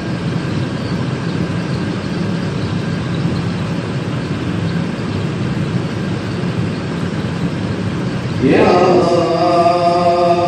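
Devotional chanting: a low, steady drone of chanted voices, then a solo voice enters with a rising note about eight and a half seconds in and holds sung notes.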